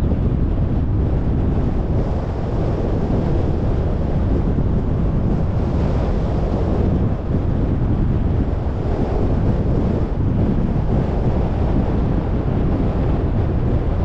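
Wind buffeting the microphone: a steady, loud low rumble with no distinct events.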